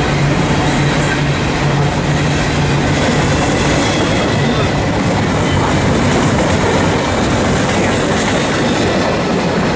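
Amtrak Southwest Chief's Superliner passenger cars rolling past close by: a steady, loud noise of wheels on the rails, with a low hum that fades about three seconds in.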